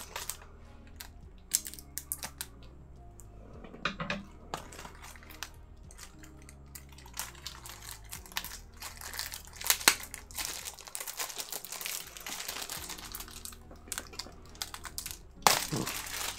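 Blu-ray packaging being handled: crinkling and rustling with scattered clicks and taps, busiest in the second half and loudest near the end.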